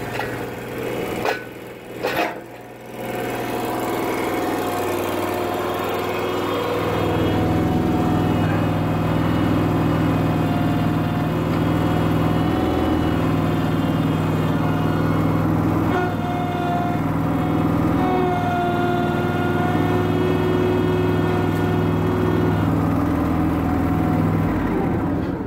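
Small engine of a Terramite compact loader-backhoe running while its loader lowers a hanging engine block. It dips twice about two seconds in, then picks up speed and runs steadily at higher revs, easing off near the end.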